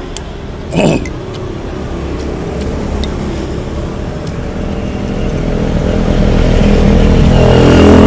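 A motor vehicle passing on the street, its engine and tyre noise growing steadily louder as it approaches and loudest near the end.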